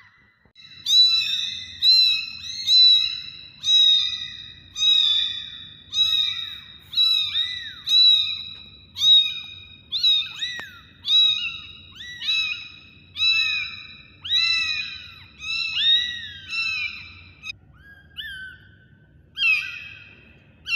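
Very young kittens meowing over and over in high-pitched calls, about one a second and sometimes overlapping, with a short pause near the end.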